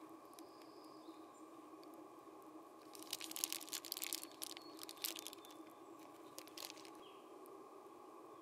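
Eastern chipmunk scrabbling over a nylon backpack: a burst of crackly rustling and scratching from about three seconds in, lasting about two seconds, with a shorter flurry near seven seconds. Under it is a faint steady hum, with a few brief high chirps.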